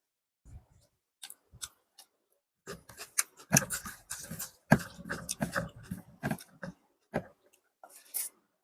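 Close-miked mukbang eating sounds of biryani and chicken curry: a few sharp clicks, then a dense run of wet chewing and mouth smacks from about three seconds in, thinning out near the end.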